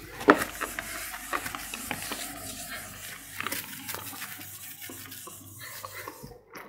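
Whiteboard eraser wiping across a whiteboard: steady rubbing and scraping with scattered small knocks, the sharpest just after the start.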